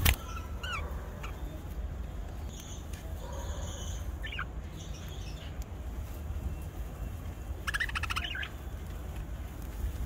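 Budgerigars chirping: a few short rising-and-falling chirps in the first second, fainter warbles a few seconds in, and a quick burst of rapid chattering about eight seconds in, over a steady low hum. A sharp click sounds right at the start.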